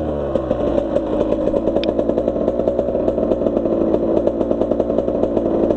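Suzuki RM85's 85cc single-cylinder two-stroke engine running at fairly steady revs.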